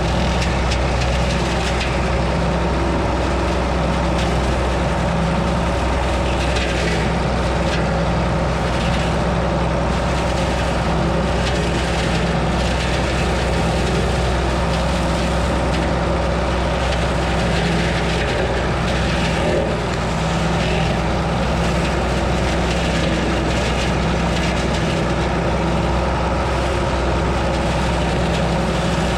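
County tractor's diesel engine running steadily under load while the Twose flail hedge trimmer cuts through the hedge, with scattered cracks from branches being chopped.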